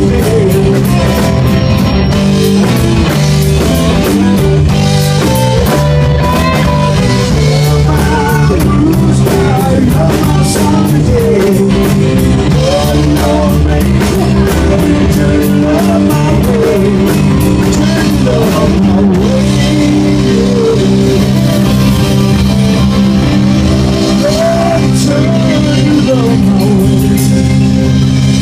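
Rock band playing live, with guitar, drum kit and a singing voice, loud and continuous.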